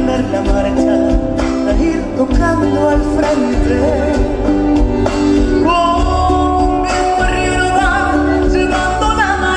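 An Argentine folk song: singing over instrumental accompaniment with a steady beat.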